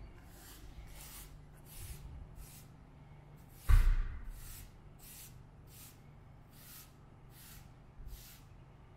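Footsteps on stone paving at an even walking pace, about one step every two-thirds of a second, over a low steady hum. A single loud thump comes a little under four seconds in and is the loudest sound.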